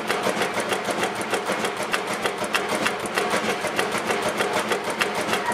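1929 Fairbanks Morse Model 32 D 14 diesel stationary engine running steadily, with a fast, even mechanical clatter of many clicks a second over a constant hum.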